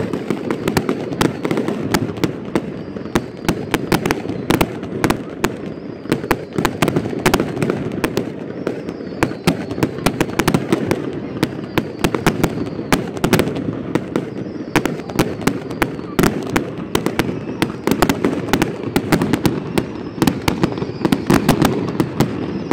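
Aerial fireworks display: a rapid, nearly continuous run of sharp bangs and crackles from bursting shells.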